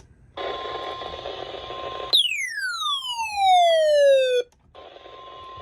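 NOAA Weather Radio 1050 Hz warning alarm tone received through static, which signals that a warning is coming. About two seconds in it breaks off for a loud electronic tone sweeping down from high to low over about two seconds, then the alarm tone over static resumes.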